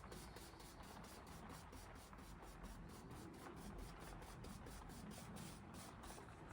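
Near silence: faint room tone with a faint, fast, regular ticking hiss, about five ticks a second.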